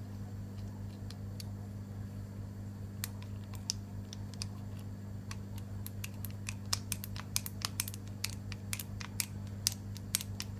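Small metallic clicks of a 7-pin tubular lock pick being worked in a tubular disc lock. The clicks are scattered at first and come quickly for the last few seconds as the pick is turned.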